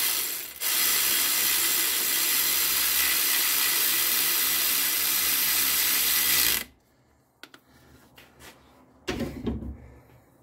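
Cordless power tool running steadily for about six and a half seconds, with a brief break near the start, driving in the new alternator's mounting bolt on a 2008 Toyota Corolla's engine; it then stops, leaving a few faint clicks and a short thud about nine seconds in.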